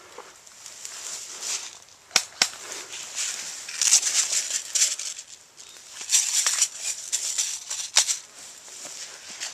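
Rustling of brush and dry leaves in two longer stretches, with a few single sharp cracks: one about two seconds in, another just after, and one near the end.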